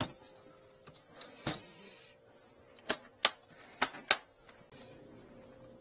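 Aluminium hard case knocked down on the floor, then its metal latches snapped open: four sharp clicks about three to four seconds in.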